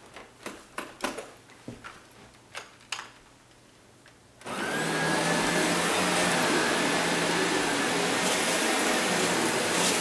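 A few light clicks and knocks, then about four and a half seconds in an upright vacuum cleaner switches on and runs steadily with a faint high whine as it is pushed over carpet.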